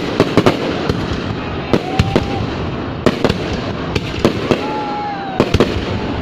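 Fireworks going off: many sharp bangs at irregular intervals, several a second at times, over a continuous dense din of bursts.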